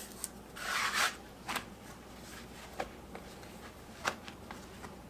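A hand sweeping semolina across a countertop: one gritty brushing swish about a second in, then a few light taps as the pizza dough is handled on the wooden board.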